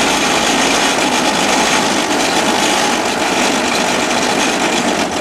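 Home-built motorised rail trolley running along the track, a steady rough grinding rattle of its wheels on the rails. The noise drops near the end as it slows.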